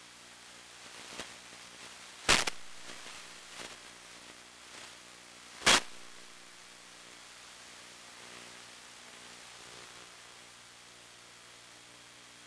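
Steady static hiss and low electrical hum on the audio channel of an analog FPV video receiver, with two loud sharp pops about three and a half seconds apart and a few fainter clicks around them.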